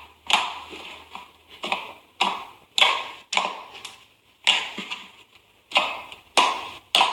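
Sticky, jelly-like slime being poked and pressed, giving a string of sharp wet clicks and pops, about two a second at an uneven pace.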